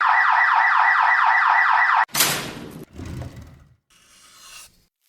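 Electronic alarm tone, a rapid falling sweep repeating about five times a second for about two seconds, then cutting off sharply. A loud burst of noise follows just after it, then softer noisy rustling.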